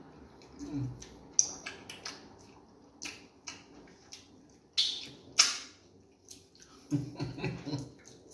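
Wet eating noises from fufu and egusi soup being eaten: scattered short squishy clicks and smacks, the loudest a pair about five seconds in.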